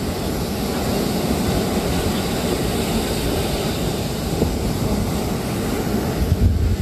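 Ocean surf breaking and washing up the beach in a steady rumble, with wind buffeting the microphone and a brief low gust near the end.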